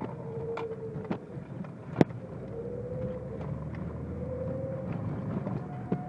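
BMW E30 325's straight-six engine running with a wavering whine that swells and fades every second or so, the weird noise whose cause is not known. Scattered sharp ticks sound over it, the loudest about two seconds in.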